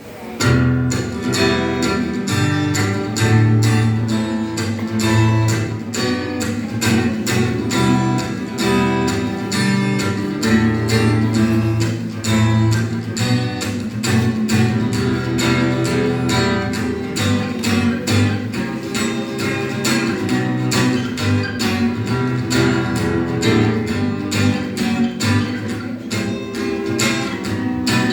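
Guitar strummed in a steady, even rhythm, chords ringing.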